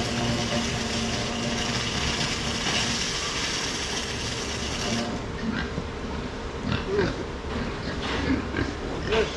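A steady engine-like running noise with a hum, which cuts off abruptly about halfway through. Then pigs grunting, a series of short grunts.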